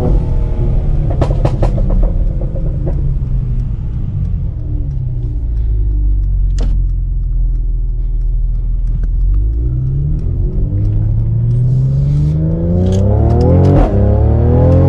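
Tuned Mercedes-AMG C43's twin-turbo V6 exhaust: the pitch falls off-throttle with sharp pops and crackles about a second in, then runs low and steady. From about ten seconds it climbs again under acceleration, dips briefly near the end as it shifts, and crackles again.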